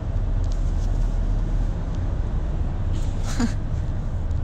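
Steady low rumble of a moving car heard from inside the cabin. About three seconds in there is a brief falling vocal sound.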